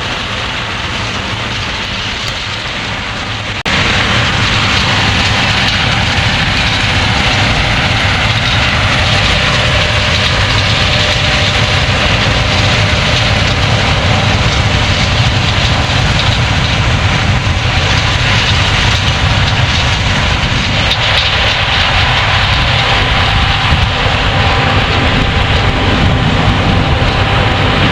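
Heavy farm machinery running steadily: a loud engine drone with a steady whine over it. The sound jumps louder about four seconds in and then holds steady.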